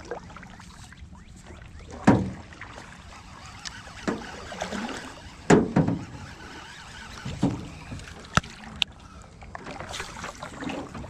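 A few irregular knocks and thumps of gear being handled in a small fishing boat, the loudest about two seconds in and again midway, over a low steady background noise.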